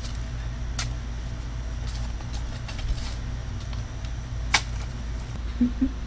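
Shovels working in the trench soil, with two sharp metal clicks about a second in and near the end, over the steady low hum of the compact tractor's diesel engine idling.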